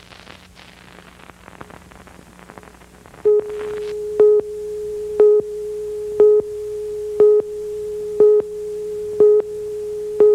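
Videotape countdown leader tone: after about three seconds of faint tape hiss and crackle, a steady mid-pitched test tone starts, with a short louder beep once a second, eight beeps in all.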